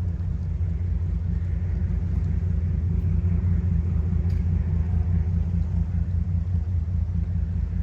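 Steady low engine rumble of the lake freighter Rt Hon Paul J. Martin sailing past, running empty.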